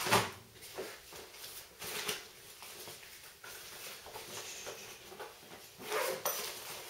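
Hands rummaging in a backpack and handling packed gear: scattered rustling and soft knocks, louder just at the start and again about six seconds in.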